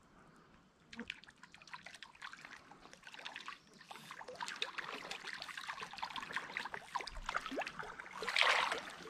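Water splashing as a small brook trout on the line is reeled in and flops at the surface, with a louder splash about eight seconds in as a hand reaches into the creek to grab it.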